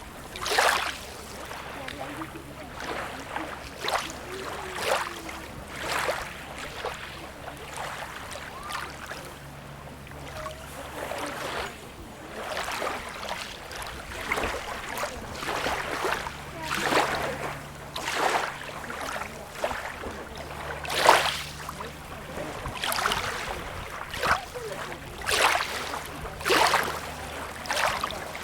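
Small waves lapping and splashing at the water's edge, a quick splash about every second over a constant wash of water.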